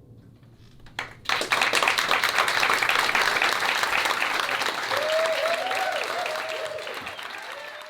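Audience applauding at the end of a song. The applause breaks out about a second in, then slowly fades, with a voice calling out over it near the middle.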